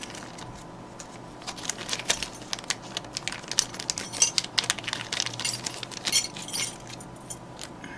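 Small plastic packet rustling and small metal parts clinking and clicking as a Leatherman pocket clip and lanyard ring are handled and taken out of it.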